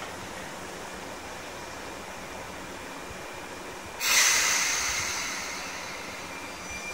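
Sotetsu 9000-series electric train standing at the platform with a steady hum. About four seconds in, a sudden loud hiss of compressed air fades away over about two seconds: the train's air brakes releasing just before it pulls away.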